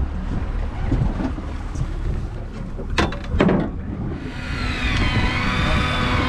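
Wind on the microphone and water around a small fishing boat, with a steady low rumble and two sharp knocks about halfway through. Near the end a wavering, siren-like tone comes in.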